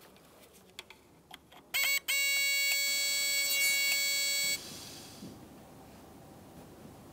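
A steady electric buzz, loud and evenly pitched, as 12 volts from a power probe is applied to the air-suspension compressor's vent-valve wire. A short buzz comes first, then the long one about two seconds in, which cuts off suddenly and leaves a soft hiss.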